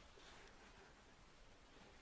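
Near silence, with only a faint, even background hiss.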